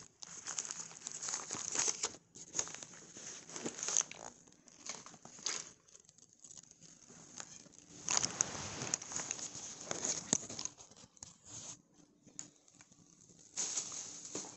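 Rustling and crinkling handling noise from a phone's microphone as the phone is moved about and rubbed, coming in irregular bursts with short quiet gaps, the longest burst about two-thirds of the way through.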